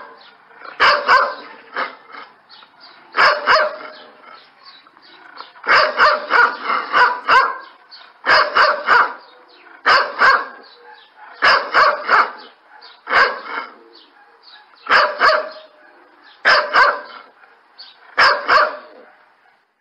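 Dog barking loudly in repeated short bouts, a bark or a quick run of two to four barks every couple of seconds.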